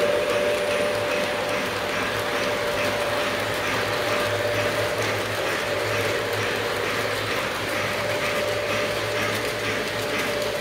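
Model freight train rolling along its track: rapid, even clicking of the wheels over the rail joints, over a steady mechanical hum.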